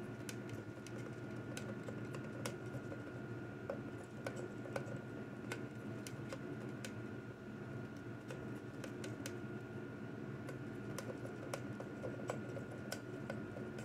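A cockatiel's beak nibbling and tearing at a cardboard toilet paper roll: irregular dry clicks and crackles, several a second, over a steady high whine and low hum in the background.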